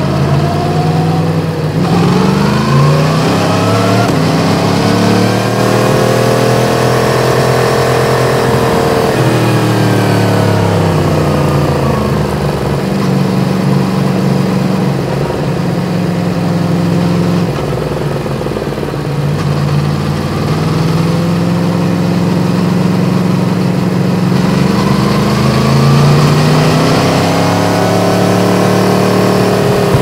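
Yamaha MT-10's crossplane inline-four with an Akrapovic exhaust, heard from the bike while riding: the engine note climbs as it accelerates, peaks, falls away as it slows, then climbs again about two-thirds of the way through. Wind and road noise run underneath.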